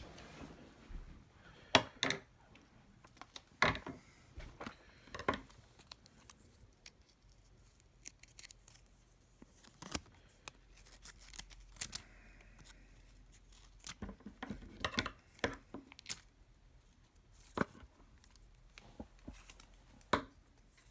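Scattered sharp clicks, snips and light crinkles of small hand work on battery adhesive pull-tab strips inside an opened iPhone 7 Plus, the loudest snaps about two seconds in, near the middle and near the end.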